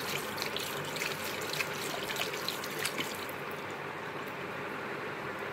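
A Pomeranian lapping at its bowl: quick, irregular wet clicks that stop about three seconds in, over a steady hiss.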